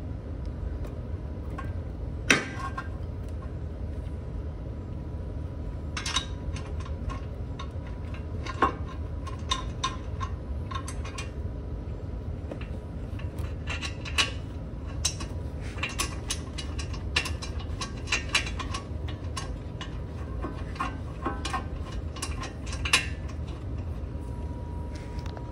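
A metal brake caliper clinking and tapping against the rotor and bracket as it is handled and fitted by hand. There are scattered sharp clicks throughout, with the loudest about two seconds in, over a steady low background rumble.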